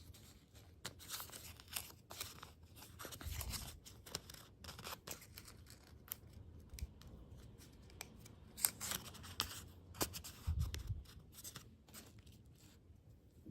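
Close-miked crunching and crackling of candy and desserts, a steady run of irregular crisp snaps and clicks, with a couple of duller low thumps about three seconds in and again about ten and a half seconds in.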